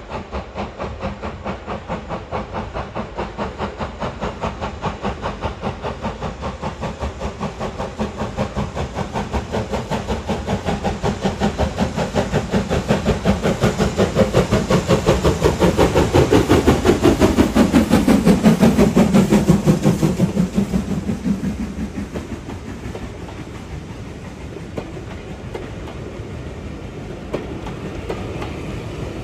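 BR Standard Class 4MT 2-6-4 tank locomotive working hard under power, its rhythmic exhaust beats growing louder as it approaches and dropping in pitch as it passes about two-thirds of the way in. After it passes, the coaches roll by with clickety-clack of wheels on the rail joints.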